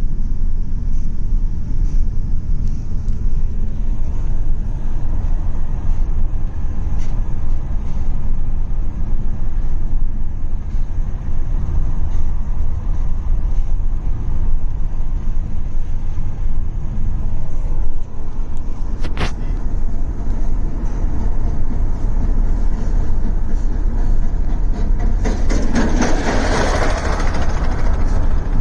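Steady low rumble of road and wind noise inside a moving car with a side window down. Near the end a louder rushing noise swells for about two seconds.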